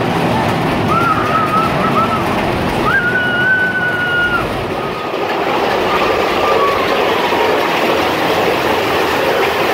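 Roller-coaster mine train rumbling and rattling steadily along its track through a cave. Two high, held squeals rise above the rumble, one about a second in and a longer one about three seconds in. Near the end there is a hiss of falling water.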